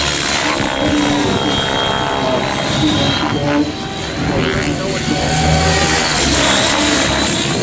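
Electric Align T-Rex 700E DFC radio-controlled helicopters flying aerobatics: a brushless 800MX motor and rotor whine that keeps rising and falling in pitch as throttle and blade pitch change.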